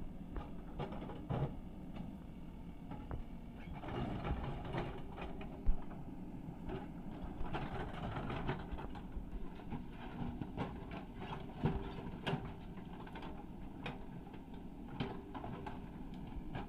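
JCB earthmover's diesel engine running steadily, with scattered short knocks and clatter from the work, the loudest about six seconds in.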